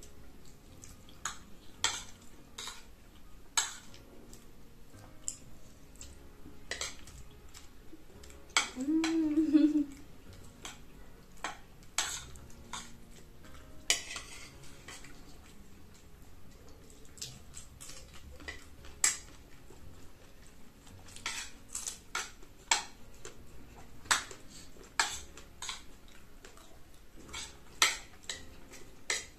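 Metal spoons clinking and scraping on a ceramic plate while two people eat from it, in scattered sharp clicks with short pauses between. A brief hummed voice sound about nine seconds in is the loudest moment.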